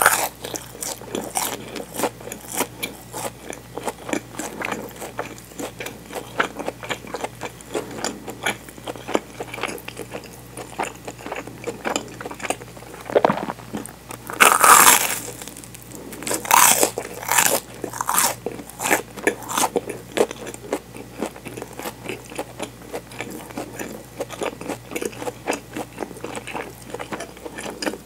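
Biting and chewing a toasted bread sandwich filled with mozzarella, picked up by a clip-on microphone at the mouth: crunches of the toasted crust over a run of small crackles, with the loudest bites about halfway through.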